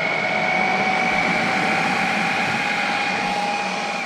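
Food processor motor running steadily, puréeing hot boiled sweet potato and carrot, with a steady whine over the churning noise.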